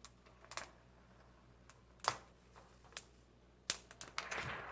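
Protective plastic film being peeled off a new laptop screen panel: scattered sharp crackling snaps, the loudest about two seconds in, then a cluster of snaps and a brief crinkly rustle near the end.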